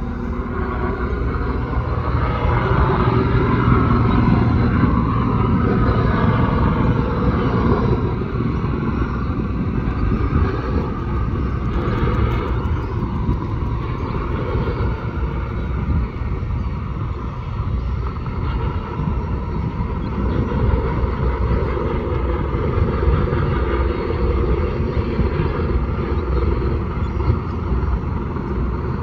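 Helicopter flying in to land: a steady low rotor and engine drone that grows louder over the first few seconds, then holds steady as it descends toward the pad.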